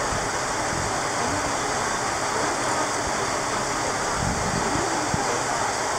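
Watarase Keikoku Railway diesel railcars idling at a standstill: a steady rushing engine and cooling-fan noise with no clear rhythm or change.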